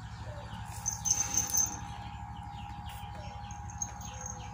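Small birds chirping, with a few sharp high chirps about a second in, over a steady low hum.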